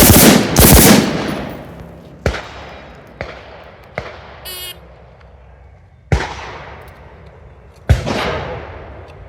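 Two loud gunshots in quick succession right at the start, each with a long echoing tail, then a few fainter sharp cracks. A short electronic shot-timer beep sounds about four and a half seconds in, and two more loud shots follow about six and eight seconds in.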